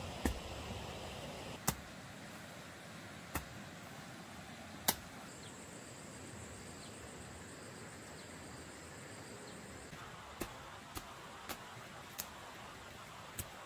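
A hoe striking hard, dry soil in slow, regular strokes, about one every second and a half, then lighter, quicker strokes near the end. A faint, steady high whine runs through the middle.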